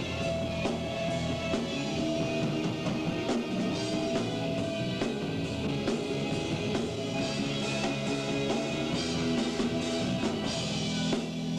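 A rock band playing live: electric guitar over a drum kit, with steady cymbal and drum hits.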